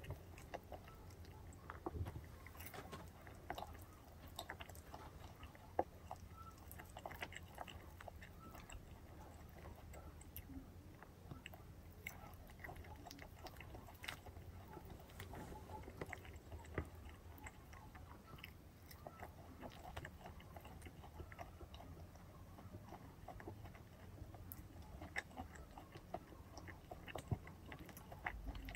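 Quiet chewing of fried chicken, with scattered soft clicks and crackles as the crispy chicken is pulled apart by hand.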